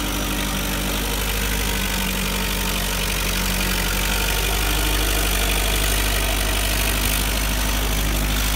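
A forklift's engine running steadily as the forklift is driven along, a low engine drone.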